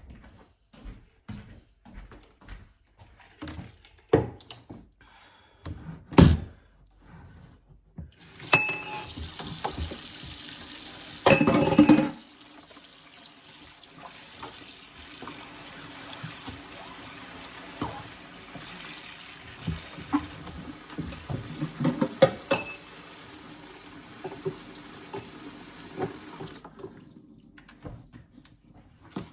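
Kitchen tap running into a sink while freezer trays are washed. Knocks and clatter of handling come first, then the water starts about a third of the way in, runs steadily with more knocks over it, and shuts off near the end.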